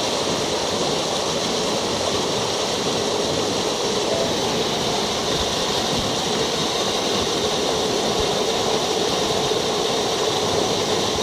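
Steady rush of a fast, rocky mountain stream.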